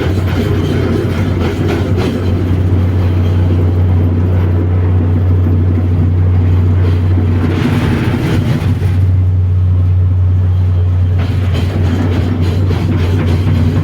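Heavy construction machine's diesel engine running steadily with a deep low drone. About seven seconds in, the drone eases briefly and a hissing sound rises over it for a second or so.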